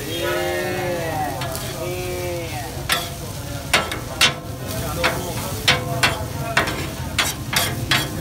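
Food frying and sizzling on a hot cooking surface, with sharp, irregular knocks of a cooking utensil that come more often in the second half.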